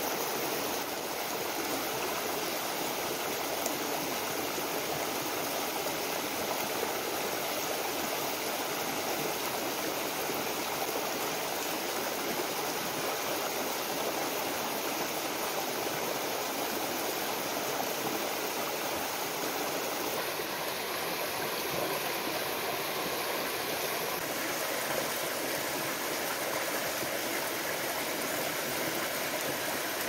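A stream running: a steady, even rush of water with no breaks.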